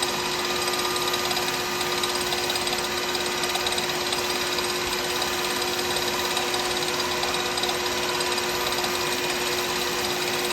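Wood lathe running at a steady speed with a constant hum, while the spinning cast pen blank is sanded dry with 800-grit abrasive.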